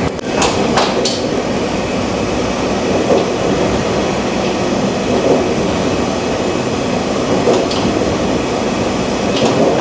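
A 485-series electric train running, heard from inside a passenger car: a steady rumble of wheels and running gear on the rails, with a few sharp clicks about half a second to a second in.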